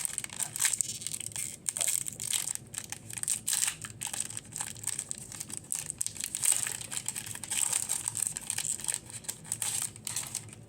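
Foil wrapper of a Pokémon trading card booster pack being torn open and crinkled by hand. It makes a continuous crackling rustle with many sharp crinkles.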